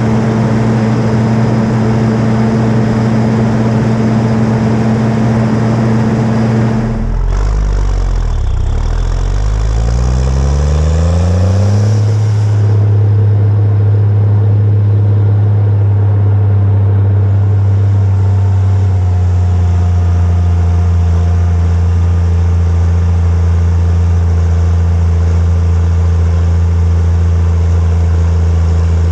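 Big Bud tractor's diesel engine running under load, heard close from the hood beside the exhaust stacks while it pulls an air seeder. About seven seconds in, the engine note dips, then rises in pitch over about five seconds and settles back into a steady run.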